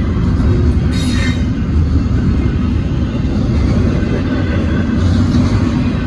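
Union Pacific double-stack intermodal train rolling past a grade crossing: a steady rumble of container flatcars and wheels on the rails. A brief higher screech comes about a second in.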